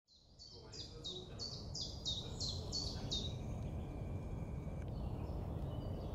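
A songbird singing a run of about nine high, downward-slurred notes, roughly three a second, then falling to fainter calls, over a steady low outdoor rumble. The sound fades in at the start.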